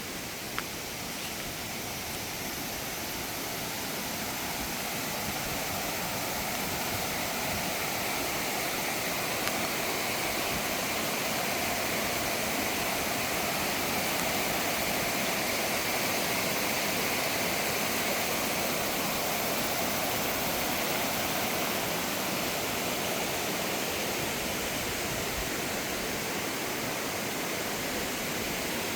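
Mountain valley stream rushing over rocks: a steady roar of running water that grows a little louder over the first ten seconds or so.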